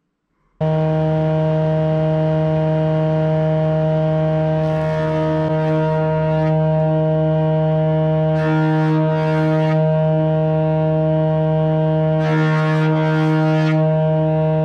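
Jointer (surface planer) running with a steady pitched whine, starting abruptly under a second in. Three times a rougher, hissing cut sounds over it as an oak board is fed across the cutterhead.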